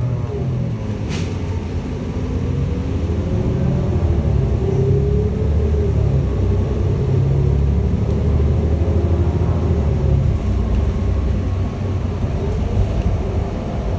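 Cummins L9N natural-gas engine of a New Flyer Xcelsior XN40 transit bus running under load as the bus pulls through an intersection and gathers speed, heard inside the cabin, its pitch rising and falling. A brief sharp sound about a second in.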